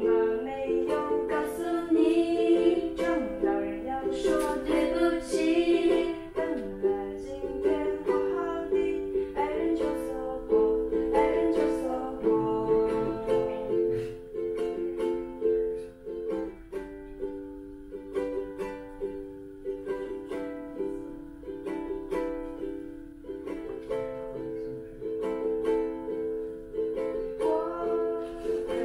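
Acoustic guitar and ukulele playing a song together, with a woman singing over them in the first few seconds and again near the end.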